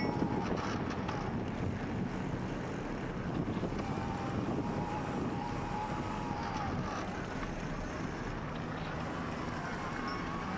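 Bicycle riding on pavement: a steady rush of tyre and road noise with wind on the microphone. A faint thin whine comes and goes.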